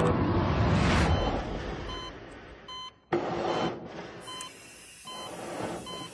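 A loud rushing noise swells over about the first second and fades away, then short electronic beeps repeat roughly once a second, with a sudden brief drop-out about halfway through.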